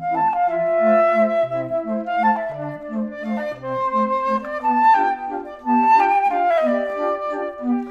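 Background music: a light woodwind melody over short, bouncing low notes.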